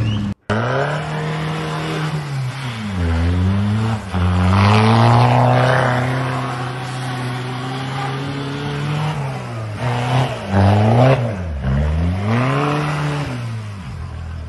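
Lifted pickup truck's engine revving hard as it spins donuts in snow with its wheels spinning. The engine pitch is held high and drops sharply several times, about a third of the way in and again near the end, climbing back each time.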